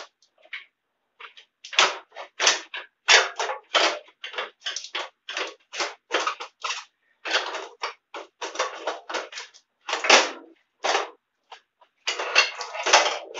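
Irregular metal clicks and clanks, several a second, from hand tools and clutch parts as the clutch is worked off a garden pulling tractor's engine.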